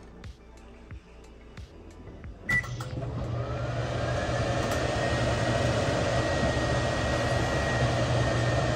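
GE over-the-range microwave oven beeps once as it is started about two and a half seconds in, then runs with a steady hum and fan noise, a faint whine rising in pitch and then holding steady. Before the beep there are only a few faint light taps.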